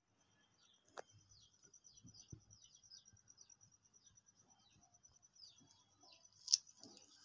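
Faint chirping of small birds: a string of short falling chirps over a steady high-pitched trill, with one louder sharp chirp about six and a half seconds in. A faint click about a second in.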